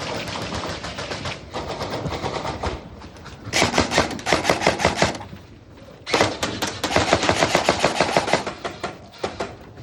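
Airsoft guns firing on full auto: softer rapid fire, then two loud bursts of rapid shots, the first about three and a half seconds in and the second about six seconds in and lasting a couple of seconds.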